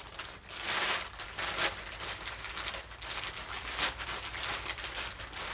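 Plastic sacks rustling and crinkling as they are handled and folded, in irregular bursts.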